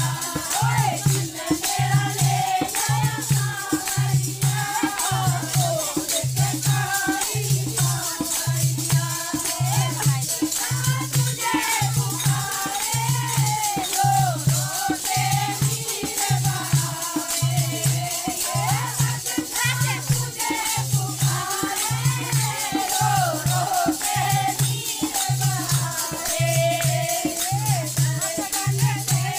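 A Hindi devotional bhajan: a wavering sung melody over a shaking, jingling rattle and hand-clapping, driven by a low drum beat just under once a second.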